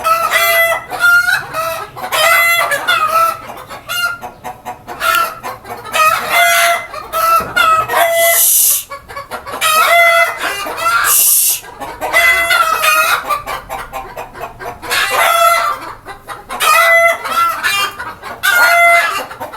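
A flock of desi chickens clucking loudly and continuously, with roosters crowing among the calls. Two short bursts of rustling noise come about halfway through.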